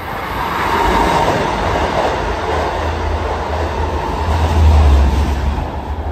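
Long Island Rail Road diesel push-pull train of bilevel coaches passing an elevated station platform at speed. Its wheels and cars rush by with a steady roar, building over the first second, and a deep rumble is loudest about four and a half seconds in.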